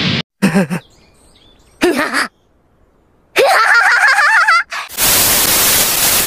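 Two short pitched vocal blips, then a warbling, wavering cry about three and a half seconds in, followed by about a second and a half of loud TV-static hiss from a VHS-style transition effect.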